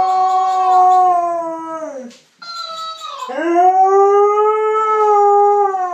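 Siberian husky howling twice in long, drawn-out howls, each falling in pitch as it trails off. Between them comes a short, higher-pitched howl-like sound from a talking hamster toy playing back the dog's voice.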